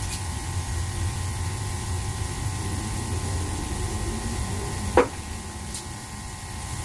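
A steady low machine hum with a faint hiss, and one sharp knock about five seconds in, the loudest sound.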